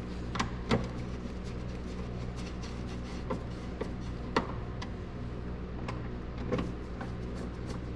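Scattered light clicks and knocks of a screwdriver and plastic parts as the air filter box lid is fitted and screwed down, a few sharper taps among them, over a steady low hum.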